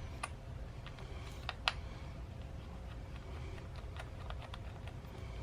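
Light scattered metal clicks and ticks, with two sharper clicks about a second and a half in, from removing the valve core from an inner tube's valve stem.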